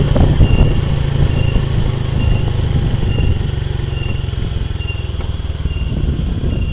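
A vehicle driving slowly, heard from on board: a steady low engine and wind rumble that eases a little about five seconds in. A short high beep repeats a little under once a second throughout.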